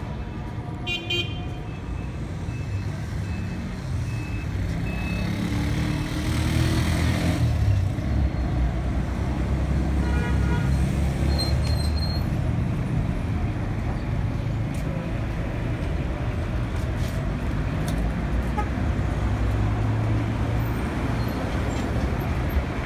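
Street traffic: the steady low rumble of car and truck engines, with short car-horn beeps about a second in and again about ten seconds in.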